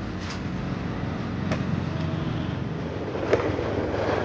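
Steady road-traffic and vehicle noise, with three short sharp clicks, the loudest about three seconds in.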